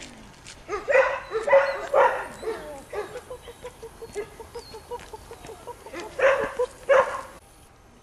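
Collie puppy barking: a cluster of loud barks, then a run of quicker, softer yips at about four or five a second, then two more loud barks near the end.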